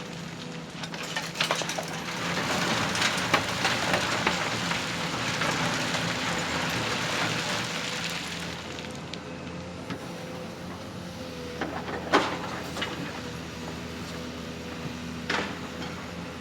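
Radio-controlled construction models working, their small electric motors humming steadily. A hissing rush swells about two seconds in and fades by about eight seconds, and a few sharp clicks or knocks come near the end.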